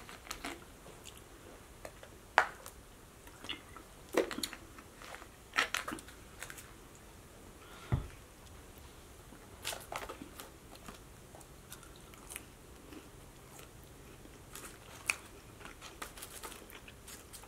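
Close-miked eating sounds: chewing with scattered short crunchy bites and wet mouth clicks every second or two, and one low thump about eight seconds in.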